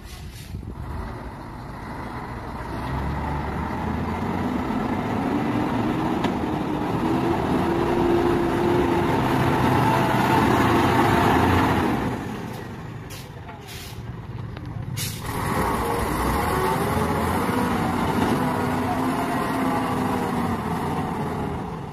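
Old Hino diesel truck engine working hard under load as the truck pushes through deep mud. The engine grows louder for the first half, eases off for a few seconds just after the middle, then pulls hard again.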